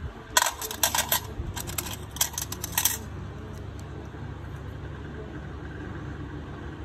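Metal pedicure instruments clinking together, a quick irregular run of sharp clicks lasting about two and a half seconds, over a steady low hum.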